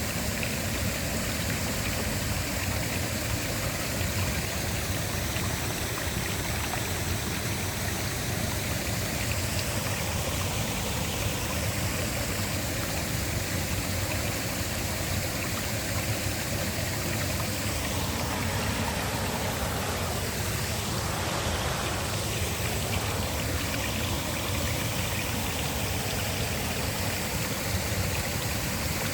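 Waterfall: falling water making a steady, even rushing noise that neither rises nor falls.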